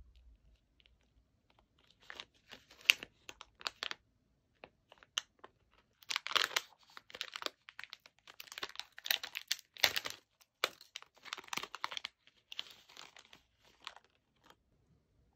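Crinkly plastic snack packaging being torn open and handled, in irregular bouts of crackling that come thickest in the middle.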